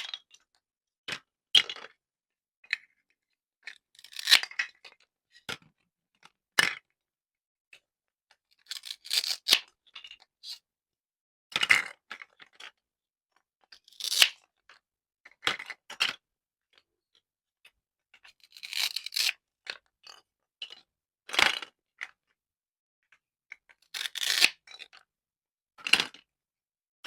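Fruit and vegetables being cut: a dozen or so short, separate crunching and tearing sounds, one every second or two, with quiet gaps between.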